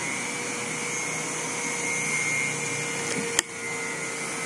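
Steady outdoor background hiss with faint steady tones running through it, and one sharp click about three and a half seconds in.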